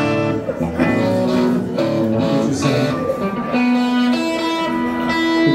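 Amplified electric guitars and electric bass playing loose held notes and chords, with no song under way yet.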